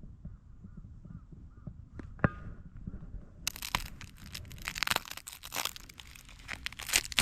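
Dry twigs and leaves being crunched and snapped by hand to make kindling: a dense crackling that starts about halfway through. Before it, a faint bird call repeats about five times.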